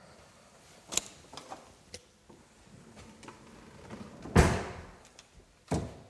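Light clicks and knocks from a tall pull-out kitchen pantry cabinet being handled, then a loud bang with a short ring as it is pushed shut about four seconds in. A second, shorter thump follows near the end.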